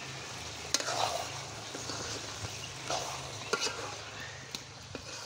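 Beef curry sizzling in a wok as a metal spoon stirs it, with a few short scrapes of the spoon against the pan.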